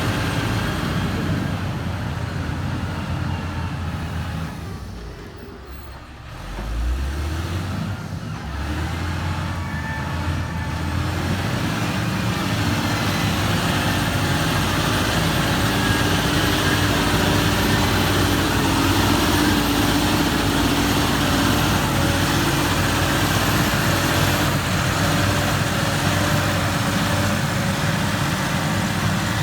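Diesel engine of heavy construction machinery running. It dies down briefly about five seconds in, then revs back up with a rising pitch and runs steadily.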